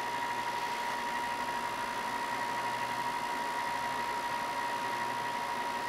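A 4 in x 36 in belt and disc sander running steadily, with a steady whine over the hiss of the belt, as a small carved wooden lure section is held against the belt.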